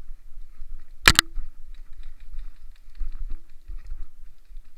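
Airsoft gunfire: a sharp double crack about a second in and two softer ones around three seconds, each with a short ring. Between them comes a scatter of small clicks and ticks.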